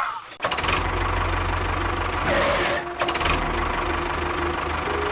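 An engine idling with a steady, rapid knock and a low hum, coming in abruptly about half a second in.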